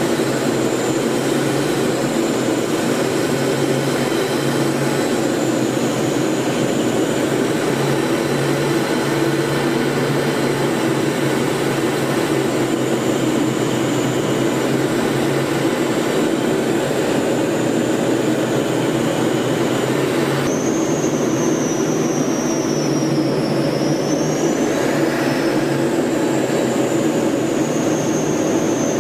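Steady drone of aircraft engines and airflow, as heard aboard an aircraft flying in formation. A thin high whine runs over the drone and wavers, dipping and rising in pitch in the last several seconds.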